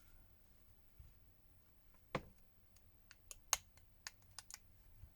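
Small hand tools clicking and tapping against a smartphone's internal parts during disassembly: one sharper tap about two seconds in, then a quick run of lighter clicks.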